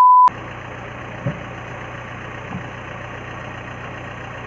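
A short, loud 1 kHz test-tone beep with the colour bars, cutting off sharply, followed by a steady low hum and hiss of a car engine idling.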